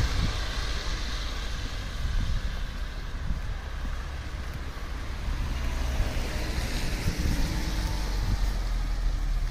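Cars passing on a wet, slushy street, their tyres hissing: one fading away at the start and another swelling about six seconds in. Underneath is a low wind rumble on the microphone.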